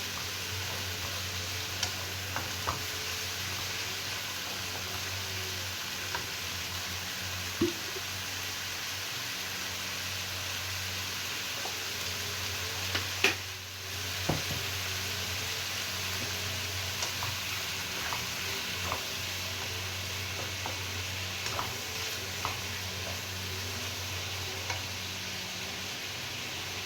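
Sliced bitter gourd stir-frying in a hot pan: a steady sizzle, with a spatula clicking and scraping against the pan now and then and one louder knock about halfway through.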